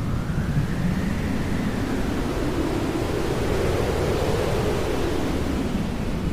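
Steady hair dryer running, a continuous noise with a faint slow rise and fall in its tone.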